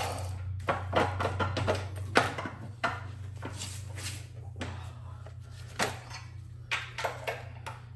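Scattered clicks and knocks of hand tools and small metal parts being handled while the sprayer's control board and its wiring are taken out, over a steady low hum.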